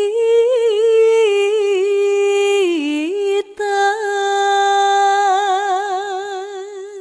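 A solo voice singing a slow, ornamented melody unaccompanied, holding long wavering notes with a short breath break midway.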